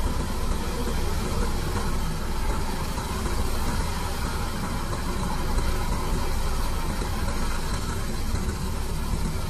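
Komatsu PC210 excavator's diesel engine running steadily, heard from inside the operator's cab.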